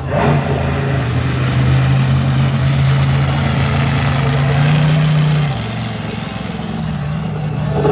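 Monster truck engines running after start-up: a loud, steady engine drone that climbs a little about five seconds in, then drops back.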